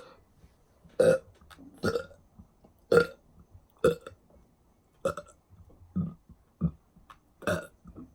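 A woman belching in a string of short burps, about one a second, some eight in all, from a stomach she says already feels full.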